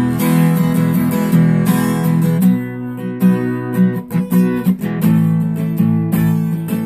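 Cutaway acoustic guitar strummed steadily; about two and a half seconds in, the strumming breaks into separate sharp strokes, and full strumming resumes about five seconds in.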